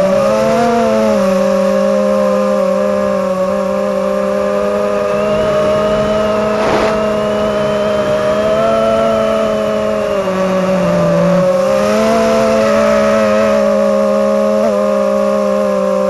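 FPV quadcopter's electric motors whining at several close, wavering pitches. The pitch dips briefly about two-thirds of the way in, then comes back up.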